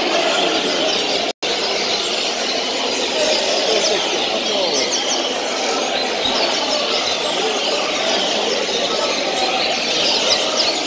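Many caged coleiros (double-collared seedeaters) singing at once: a dense, continuous mass of quick chirps and trills. The sound cuts out for a split second about a second and a half in.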